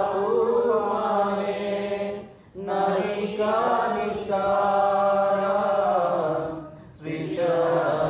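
Voices singing a Bengali devotional bhajan in long, held melodic phrases, broken by two short breath pauses.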